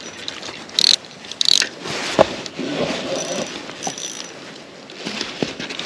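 Spinning reel ratcheting and whirring as a hooked trout is reeled in against the pull of the fish, with two short sharp bursts in the first two seconds.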